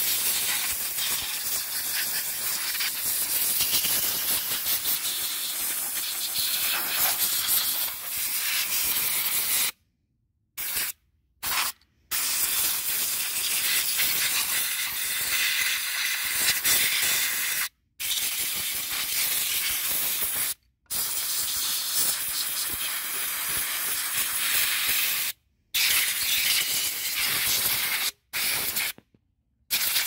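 Compressed-air blow gun hissing as it blasts dirt off a motorcycle engine and frame. The hiss runs unbroken for about ten seconds, then comes in a series of blasts with abrupt stops between them as the trigger is released and pressed again.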